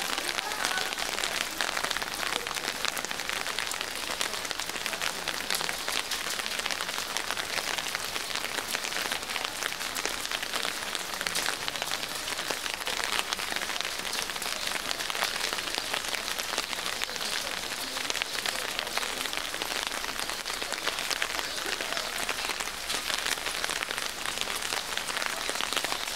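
Steady rain falling, heard as a dense, even patter of drops.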